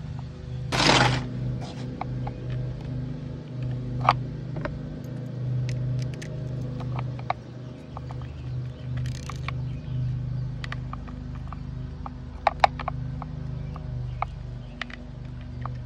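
Scattered small clicks and taps of hand tools and wire terminals as the little wires are taken off the switch boxes of a Mercury outboard, over a steady low hum, with a short rasp about a second in.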